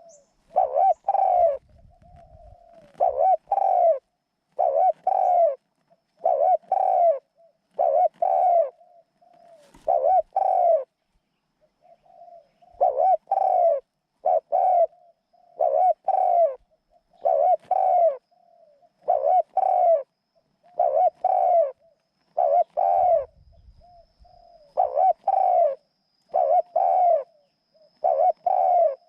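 A captive decoy dove cooing over and over: loud paired coos about every two seconds, each pair led in by softer short coos, with a brief pause about eleven seconds in.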